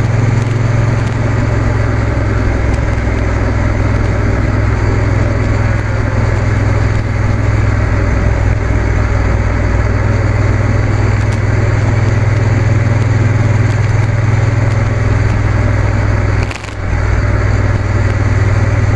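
Motorcycle engine running steadily at cruising speed, with wind and road noise rushing past; the sound dips briefly about two seconds before the end.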